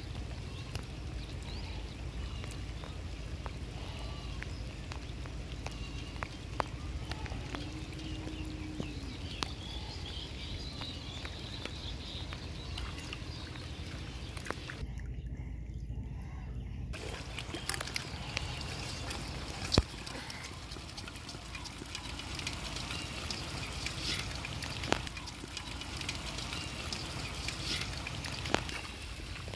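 Shallow paddy water sloshing and trickling as hands work through the flooded mud, with light rain falling on the water and scattered sharp ticks and splashes.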